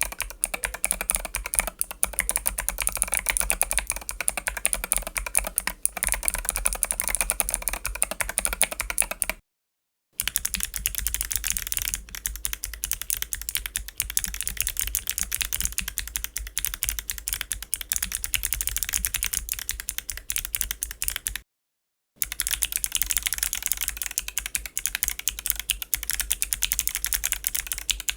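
Fast typing on a mechanical keyboard fitted with WS BigLucky clicky switches: a dense run of crisp keystroke clicks. The typing comes in three takes separated by two brief silent cuts, the middle take sounding duller and less bright than the other two.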